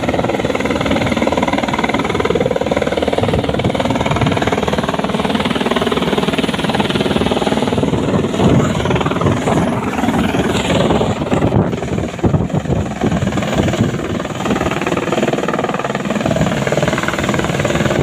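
Helicopter flying close by, its rotor beating in a steady, rapid chop over the engine noise.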